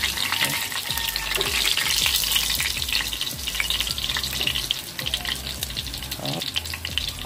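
Chicken pieces frying in hot oil in a non-stick pan, with a steady sizzle full of fine crackles. It eases off a little toward the end as the last pieces are lifted out of the oil with metal tongs.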